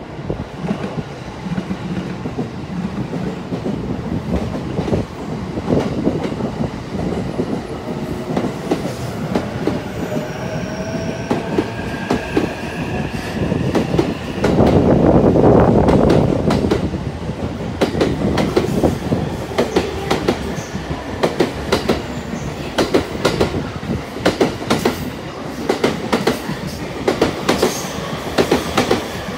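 JR East E233 series 3000 and E231 series 1000 electric commuter trains pulling out of the station and accelerating. The traction motor whine rises in pitch, and the wheels clatter over rail joints, the clicks coming faster toward the end. There is a louder stretch of rushing noise about halfway through.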